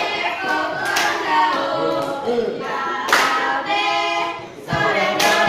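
Group of girls singing a song together in unison, unaccompanied, with three sharp hand claps about two seconds apart.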